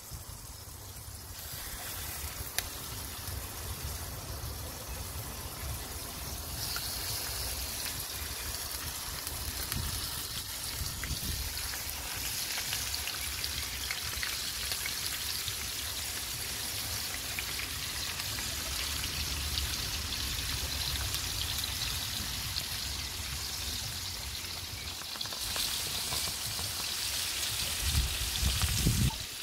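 Pork sirloin steaks sizzling in a cast iron skillet: a steady hiss that gets louder about six seconds in and eases back near the end, over a low rumble.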